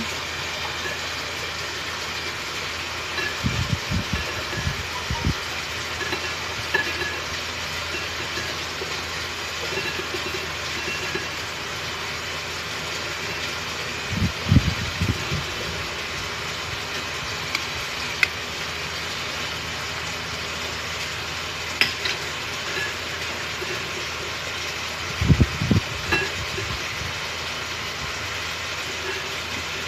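Steady hiss of a gas stove burner under a simmering pot of soup. Three times, there are low thumps and soft knocks as handfuls of mushrooms are dropped into the pot.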